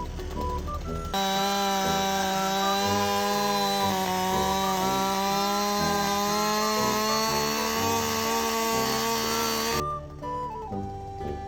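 Husqvarna 560 two-stroke chainsaw running steadily at full throttle while bucking a log. It comes in about a second in and cuts off abruptly near the end.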